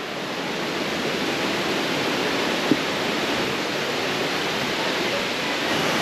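Waterfall rushing: a steady, even noise of falling water.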